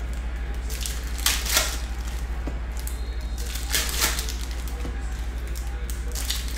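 Foil trading-card pack wrappers crinkling and tearing open in several short, hissy bursts of rustle, over a steady low hum.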